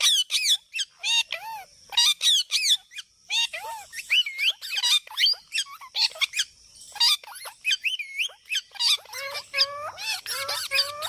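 Parrot squawking and chattering: a rapid run of short, loud calls and whistles that sweep up and down in pitch. Near the end it shifts to a quick series of lower, repeated calls.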